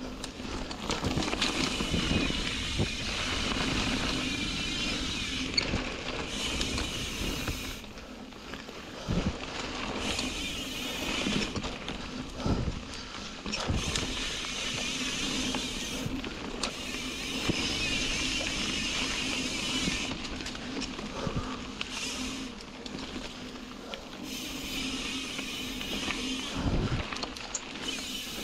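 Ibis Ripmo v2 full-suspension mountain bike riding a dirt and rocky singletrack: tyres rolling on dirt and gravel with frequent knocks and rattles as it goes over stones, and stretches of brighter rattle that come and go.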